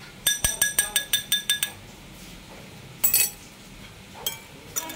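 Small wire whisk clinking quickly against a small glass bowl, about ten rapid strikes with a ringing glassy tone in the first second and a half, as slaked lime paste is whisked into a little coconut milk to dissolve it. A short rustling burst about three seconds in, and a few lighter clinks near the end.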